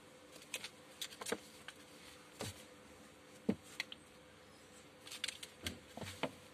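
A kitten playing with a shoelace on a tile floor: irregular light taps and scuffs of paws and lace on the tiles, with a quick flurry of them near the end as it tumbles over.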